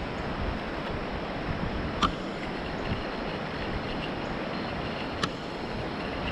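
Steady rush of river water through rocky shoals, with some wind on the microphone; two sharp ticks stand out, about two seconds in and about five seconds in.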